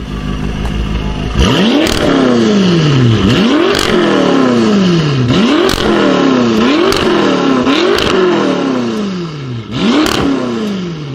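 Twin-turbo V8 of a tuned BMW M5 F10 with Akrapovic exhaust, revved hard while standing: about seven blips, each climbing quickly and falling away more slowly, with sharp exhaust cracks near several of the peaks.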